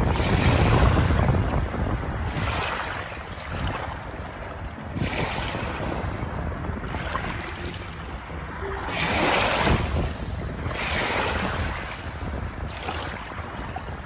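Small waves lapping over a shore of pebbles and shell grit, a fizzing wash of water every two to three seconds. Wind rumbles on the microphone, strongest in the first couple of seconds.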